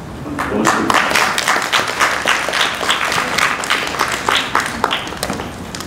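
Audience applauding, starting about half a second in and dying down near the end.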